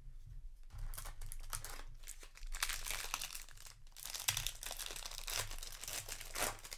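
Foil wrapper of a Magic: The Gathering set booster pack crinkling and tearing as it is handled and ripped open by hand, a dense run of quick crackles starting about a second in.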